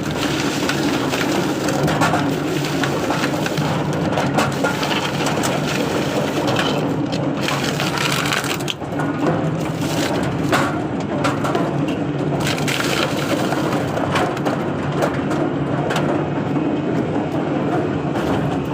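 Coconut dehusking machine running, its motor humming steadily while the coconuts are fed through and the husks are torn off with continuous crunching and cracking.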